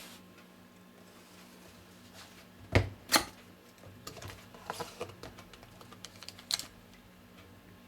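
Scattered taps and clicks of a phone box and its contents being handled during unboxing, with two louder knocks about three seconds in and a run of lighter clicks after.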